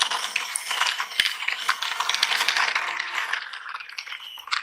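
Plastic toy container truck rattling and clicking rapidly as it is handled, with the sound cutting off abruptly near the end.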